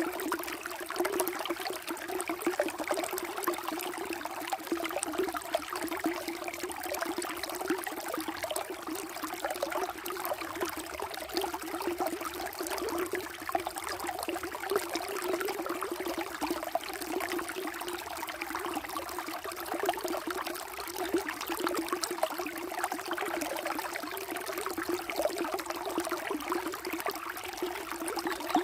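Water flowing steadily, a continuous trickling that does not pause or change.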